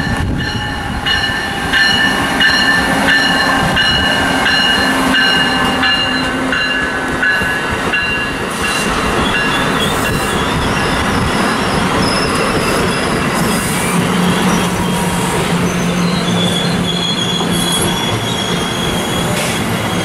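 Amtrak passenger train rolling through the station, its steel wheels squealing on the rails in several high, steady tones over the continuous rumble of the cars.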